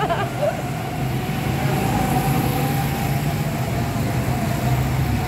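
Go-kart engine running with a steady drone and a faint steady whine, heard from the driver's seat as the kart pulls out onto the track.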